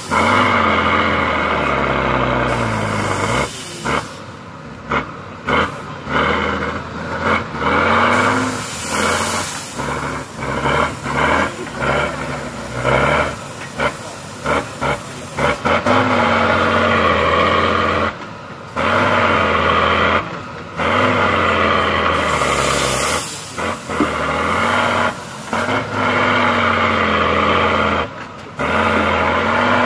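Tatra 6x6 trial truck's air-cooled diesel engine working hard under load, its pitch rising and falling as the throttle is worked, with the level dipping sharply many times. Three bursts of air hiss, at about 3, 9 and 23 seconds in.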